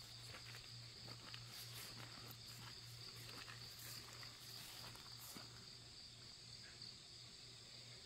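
Faint, steady chorus of grass insects chirring in one high, even band. Scattered light rustles and clicks sound through the first five seconds or so, with a low pulsing hum underneath throughout.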